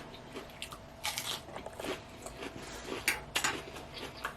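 A person chewing a mouthful of salad close to the microphone: irregular wet crunches, with louder bites about a second in and again around three seconds in.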